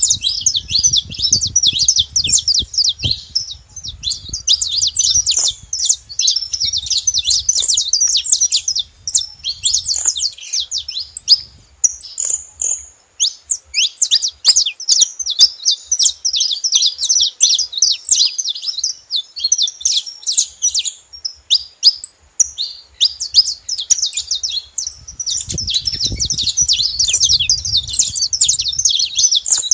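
Saffron finch singing a long, fast run of high chirping notes, with a short pause about twelve seconds in.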